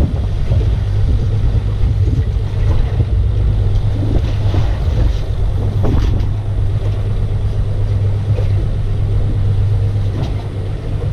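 Boat's outboard motor idling, a steady low hum, with a few faint knocks about halfway through.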